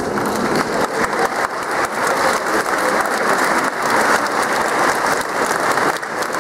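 Large audience applauding, a dense steady clapping that swells slightly about a second in.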